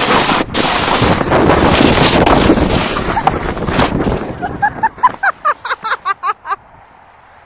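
Loud rushing of wind on the microphone and a sled sliding fast over snow, which stops about four seconds in. A person then laughs in quick short bursts for about two seconds.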